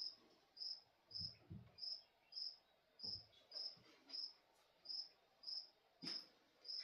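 Cricket chirping steadily: a short, high chirp repeated evenly, a little under two a second. Faint low knocks of hand work on the saw come about a second in and again about three seconds in.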